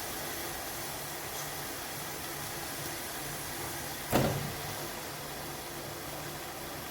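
Steady hiss of a pot cooking on a gas stove, with a faint low hum, broken by a single sharp knock about four seconds in.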